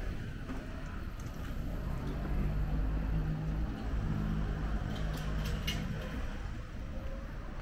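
Low, steady engine hum over street background noise, swelling in the middle and easing off, with a few light clicks near the end.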